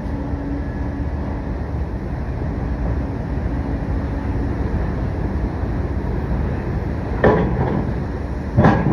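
Skateboard on concrete: a steady rumble throughout, then two sharp clacks of the board hitting the ground, one about seven seconds in and one near the end.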